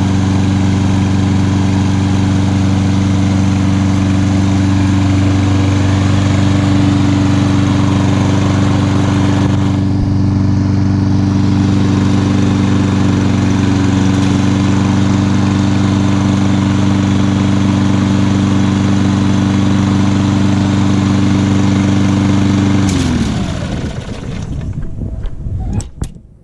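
Lawn-Boy walk-behind lawn mower's small engine running at a steady speed. Near the end it is shut off and winds down with falling pitch, followed by a couple of sharp clicks.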